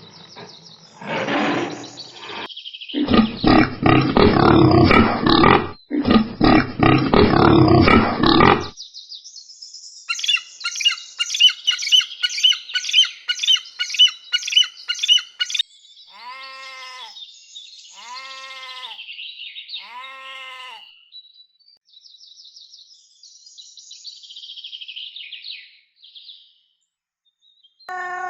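A string of different animal calls, one after another. First two long, loud, rough grunting calls. Then a fast run of about a dozen high chirps, then three falling pitched calls, then fainter high chirping.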